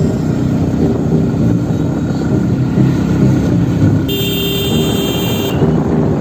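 Motorcycle engine running and road noise while riding, heard from the rider's seat, a steady rumble. About four seconds in a high steady tone sounds for about a second and a half.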